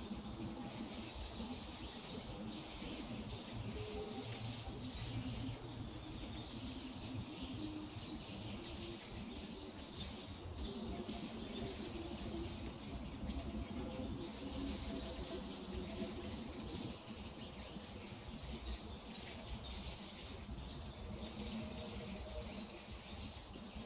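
Small birds chirping and twittering continuously over a steady low outdoor rumble.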